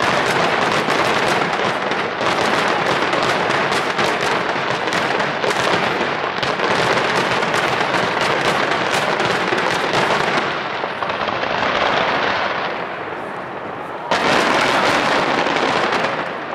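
Barrage of aerial fireworks shells bursting over the sea: dense, rapid, overlapping bursts and crackling. It eases off about ten seconds in, then a loud fresh volley bursts about fourteen seconds in.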